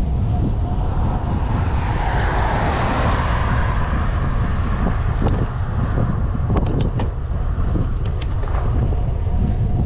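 Wind buffeting a microphone on a moving bicycle. A louder rushing sound swells and fades about two to four seconds in, and a few sharp clicks come after it.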